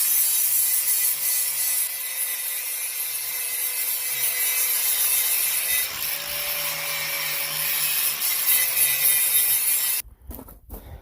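Grinder running against steel, grinding the old welds off the top edge of the mini excavator's blade: a harsh, steady grinding hiss over the motor's whine, which cuts off suddenly near the end.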